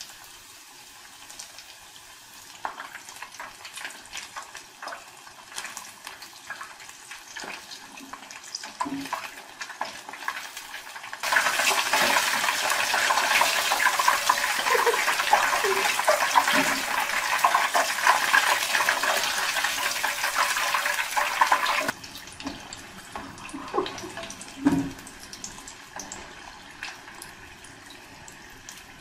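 Samosas deep-frying in a pan of hot oil: a steady sizzle and crackle of bubbling oil, which turns much louder and fuller for about ten seconds in the middle and then drops back suddenly. A few light clicks are heard against it.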